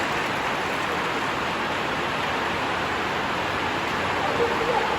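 Steady, even hiss of rain with no breaks.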